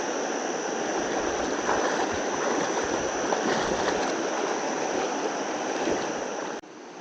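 Steady rush of a fast-flowing river's current over stones. It cuts off suddenly near the end.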